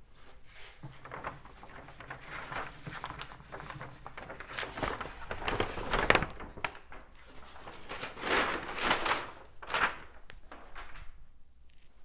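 A large sheet of brown kraft paper rustling and crinkling as it is lifted and pulled off a framed picture, in a run of uneven bursts that are loudest about halfway through and again near the three-quarter mark.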